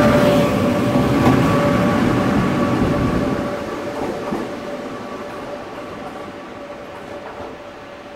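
Taiwan Railway Tze-Chiang push-pull express train pulling away from the platform: the wheels' rumble on the rails fades as the rear electric power car passes and recedes. A steady whine from the train drops slightly in pitch near the end.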